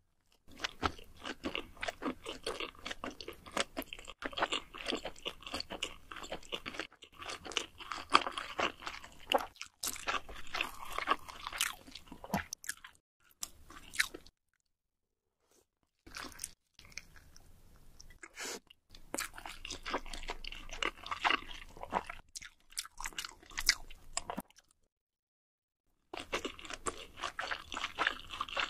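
Close-miked chewing and biting of sauce-coated noodle wraps: dense, irregular crackly clicks and wet mouth sounds, cutting to dead silence twice, about halfway and near the end.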